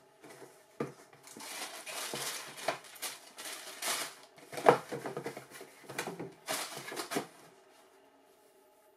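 Cardboard shoebox being opened and handled, with tissue paper crinkling and rustling as a running shoe is unwrapped and lifted out, then the lid put back on. Several sharp cardboard knocks come through the rustling, the loudest about halfway, and the handling stops near the end.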